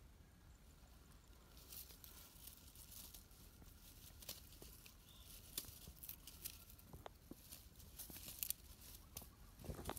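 Faint crackling and rustling of dry plant litter being disturbed, starting about two seconds in, with scattered sharp ticks and snaps.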